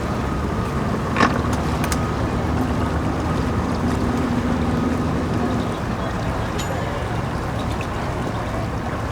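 Boat engine running steadily at a boat ramp under a continuous low rumble, with a hum that fades out about six seconds in. A single sharp knock about a second in.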